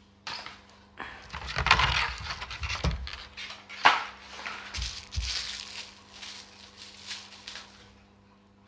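Handling noise: crinkling, rustling plastic packaging with sharp clicks, a loud click a little before the middle, and two dull knocks as things are set down on a table.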